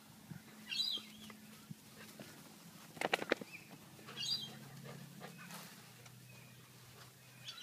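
Dogs at play: a quick burst of sharp yips about three seconds in, with a few brief high squeaky calls before and after it.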